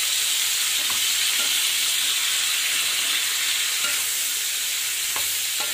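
String beans and pork sizzling steadily in hot oil in a stainless steel wok while being stirred with a spatula, with a few faint knocks of the spatula against the pan.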